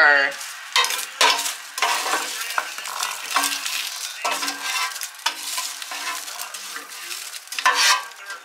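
Air-fried Brussels sprouts scraped with a spoon out of an air fryer basket and tumbling into a bowl: irregular scraping and clattering, with a few short rings from the bowl.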